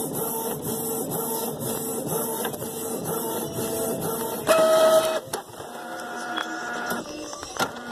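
Printer running a print job, its mechanism cycling in a regular rhythm about twice a second. About halfway through there is a louder whir lasting under a second, followed by lighter whirs and clicks as the printed sheet feeds out.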